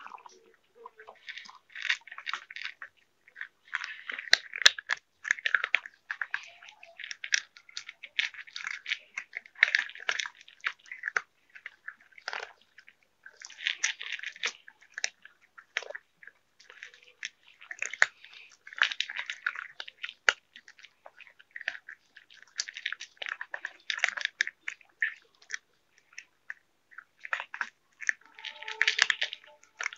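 Cats crunching dry kibble from plastic bowls: irregular, close crunching and chewing in quick bursts with short pauses between mouthfuls.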